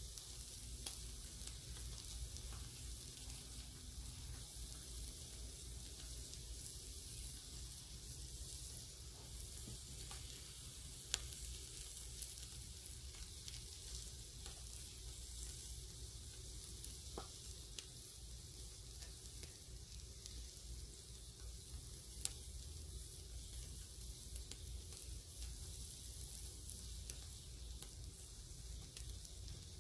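Whole mullet sizzling on a grill grate over open flames: a steady hiss, with two sharp pops about eleven and twenty-two seconds in.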